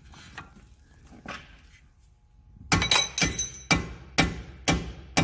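Hammer blows on a steel bolt to drive it out of the front differential mounting: light tool clinks at first, then from about halfway sharp ringing metal strikes, roughly two a second.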